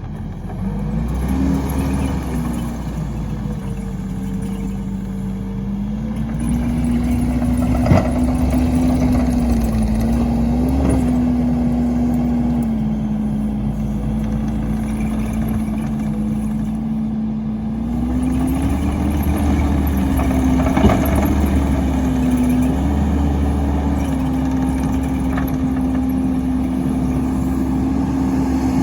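Engine of a firewood splitter running steadily, its pitch dipping and rising as the load changes. Two sharp cracks stand out, about eight seconds in and again around twenty-one seconds.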